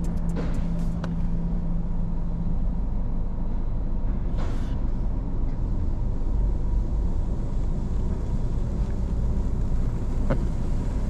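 A car running, a steady low rumble with a faint hum that fades out a couple of seconds in. A brief hiss comes about four and a half seconds in.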